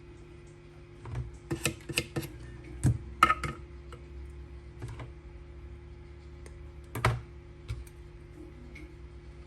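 Irregular clicks and taps of small tools and parts being handled on a workbench: a quick cluster about a second in, then a single click about seven seconds in, over a steady electrical hum.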